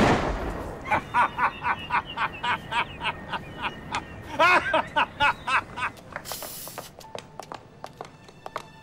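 A shotgun blast dies away, followed by a quick run of cackling laughter. Then comes a short hiss from an aerosol spray can, and soft music with a few clicks starts near the end.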